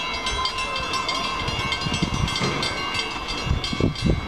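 Grade-crossing warning bell ringing steadily, its repeated strokes blending into a sustained ring, over irregular low rumbling. The crossing is active ahead of an approaching LIRR M7 train.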